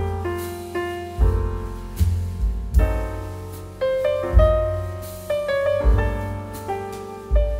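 Background piano music: a calm piece with bass notes every second or so under a melody.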